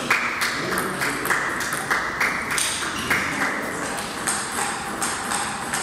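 Table tennis ball ticking off the bats and bouncing on the table during a rally: a string of sharp clicks, a few per second, over a steady hiss.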